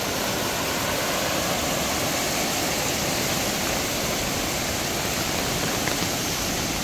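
Floodwater rushing down a creek in flood, a steady, unbroken rush of noise.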